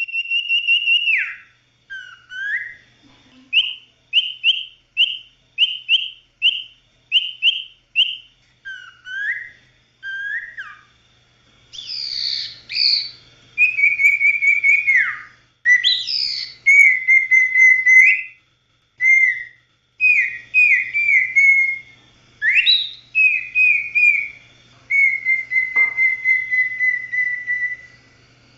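Common iora (cipoh/sirpu) singing a long series of clear whistles. It opens with a long level note that drops away, then a run of short repeated notes at about one and a half a second. Slurred and more complex phrases follow, and it ends on a long, level whistle.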